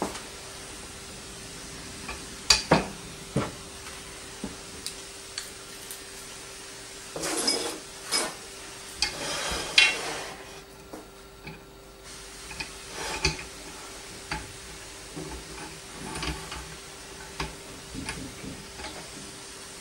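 Metal parts of a microscope boom stand being handled and fitted together: scattered clinks and knocks of metal on metal and on the table, with two longer scraping handling noises about seven and nine seconds in. A faint steady hum runs underneath.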